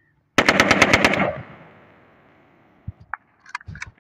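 AK-47-pattern rifle firing one fully automatic burst of about ten shots in under a second, followed by a fading echo. A few faint clicks near the end.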